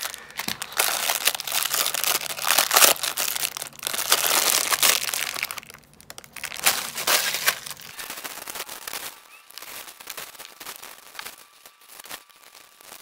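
Clear plastic packaging bags crinkling and crackling as items are handled and pulled out of them. Loud and dense for the first six seconds or so, then quieter and more scattered.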